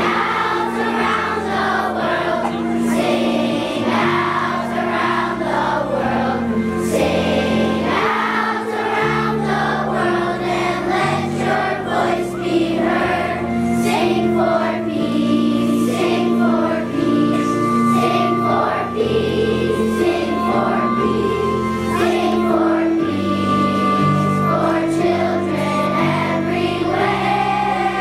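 A large group of elementary schoolchildren singing a song together as a choir, over an instrumental accompaniment with sustained bass notes.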